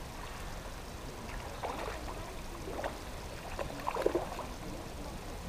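A hooked salmon trout splashing at the surface of the pond as it is played on the rod: several short splashes, the loudest about four seconds in.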